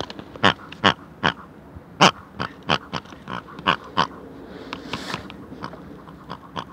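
An animal's short, sharp calls in a quick irregular series, about ten in the first four seconds, then a few fainter ones.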